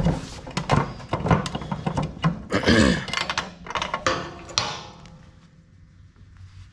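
Repeated knocks and clanks of metal on an aluminum ramp hinge as a cut hinge piece is worked loose, dying away after about five seconds.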